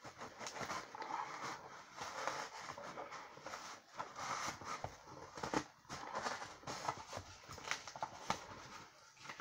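Fingernails picking and scratching at duct tape on a cardboard box, with short stretches of tape peeling and many sharp little clicks and crackles.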